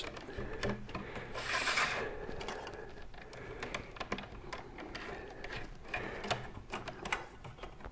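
1.5 mm² green-and-yellow PVC single cable being pushed by hand into PVC conduit: soft rubbing and scraping of the insulation sliding through. A louder rubbing hiss comes about one and a half seconds in, with small scattered clicks.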